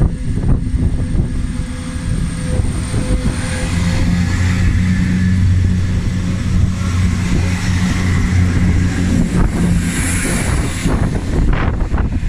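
ScotRail Class 170 Turbostar diesel multiple unit running past along the platform, its underfloor diesel engines giving a steady drone over the rumble of the wheels. The engine note is loudest as the carriages go by, with wind buffeting the microphone near the end.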